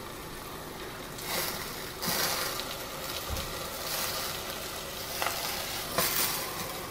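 A flour tortilla rustling in several soft bursts as it is folded and rolled up by hand around a fajita filling, over a steady hiss.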